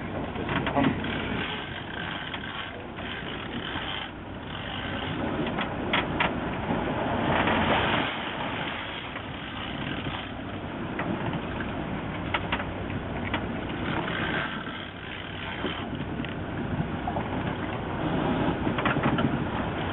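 Fishing boat's engine running under a rushing haze of wind and water noise.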